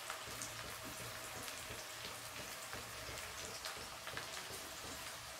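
Chopped onion and garlic frying in oil in an aluminium kadhai: a faint, steady crackle and sizzle of many tiny pops as they cook toward browning.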